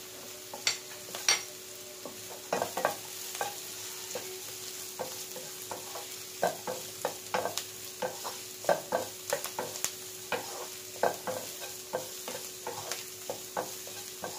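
A wooden spatula stirs and scrapes diced vegetables around a non-stick frying pan, making irregular knocks and scrapes over the steady sizzle of the vegetables frying in oil. A faint steady hum runs underneath.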